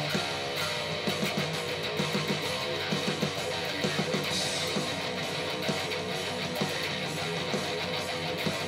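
Ibanez RG1527 seven-string electric guitar played through an amp, with fast picked notes in the low register.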